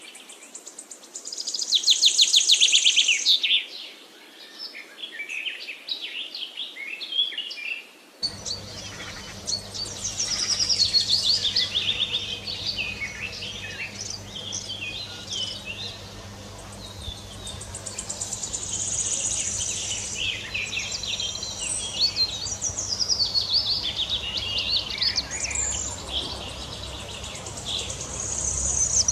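Many small birds chirping and twittering rapidly and continuously, with short quick trills. About eight seconds in, a low steady hum joins underneath.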